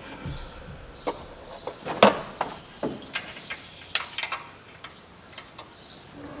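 Scattered short metallic clicks and taps of hand tools, with a sharper knock about two seconds in and another near four seconds: nuts being run onto an engine stud and worked with a wrench so they can be locked against each other.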